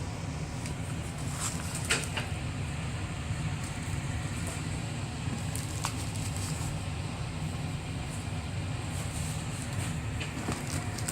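Packaging being handled during unboxing: scattered crackles and clicks of plastic and cardboard over a steady low hum.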